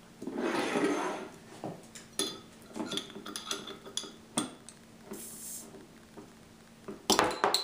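A hand-held metal bottle opener clinking and scraping against the crown cap of a glass bottle as the cap is levered off: a rustle of handling at the start, then a run of sharp metal clicks, a brief hiss about five seconds in, and a loud clatter near the end.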